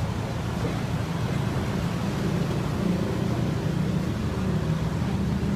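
Box truck engine running steadily as the truck edges forward a short distance, with a low hum.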